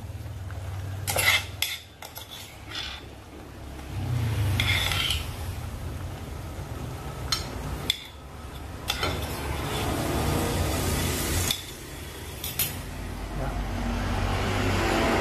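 Metal spoon scraping and clinking against a pot and a ceramic plate as braised food is spooned out, with a few sharp clinks, over a steady low hum.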